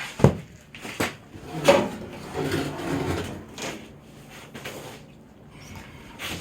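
Wooden boards being handled and shifted on a work surface: several sharp wooden knocks and clunks, the loudest near the start, with scraping and handling noise between.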